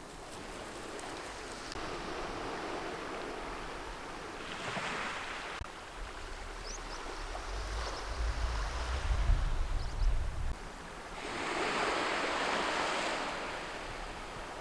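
Waves washing onto a beach, the surf noise swelling and fading in several surges. A low gusty rumble, typical of wind on the microphone, comes in the middle.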